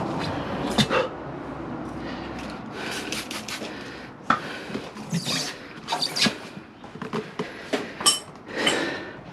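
Front motorcycle tire being worked onto its wheel rim by hand: irregular clicks, knocks and scraping of tire levers and rubber bead against the rim.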